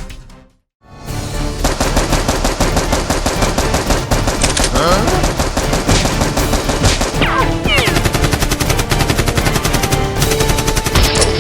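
Rapid automatic gunfire sound effects firing continuously, starting about a second in after a brief silence, with a few short whizzing sweeps in the middle.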